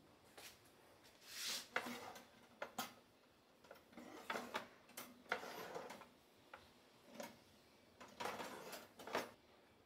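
Hands handling a white wire storage basket and folded cotton kitchen towels. Several soft swells of cloth rustling come with scattered light clicks and taps as the wire basket knocks against the wooden shelf.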